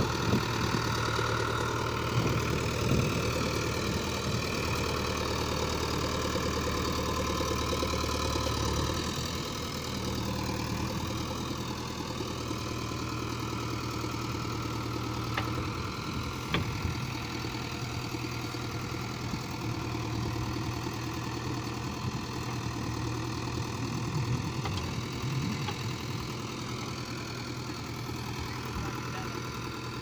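Diesel engine of a JCB 3DX backhoe loader running while it loads soil into a tractor trolley, with a Mahindra tractor's diesel engine idling alongside. The engine note shifts about nine seconds in.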